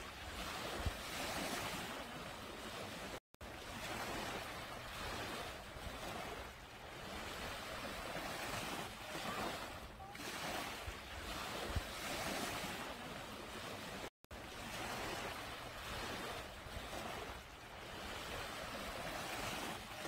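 Small waves breaking and washing up a sandy beach, a steady rush of surf and fizzing foam that swells and ebbs every few seconds. Two soft low thumps come about eleven seconds apart, and the sound drops out for an instant twice.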